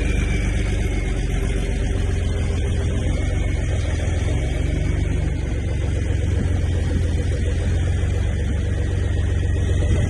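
A machine running steadily with a deep, engine-like hum.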